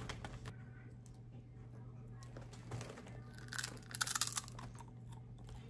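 Original Funyuns onion-flavoured snack rings being chewed, mostly quiet, with a short burst of crunching and snack-bag crinkling a little past halfway.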